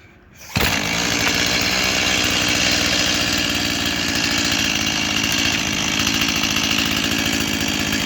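Stihl MS 180 C-BE two-stroke chainsaw, already warm and with its spark arrestor screen removed, starting on the Easy2Start about half a second in and then running steadily.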